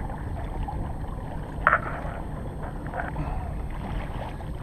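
Steady wind rumble on the microphone over water sloshing against a kayak, with a short sharper sound about a second and a half in.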